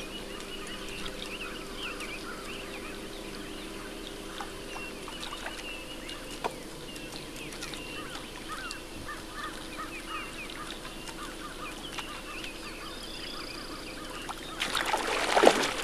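Waterfowl honking and calling, with scattered bird calls. Near the end comes a sudden loud splashing as a bass strikes the jigger lure.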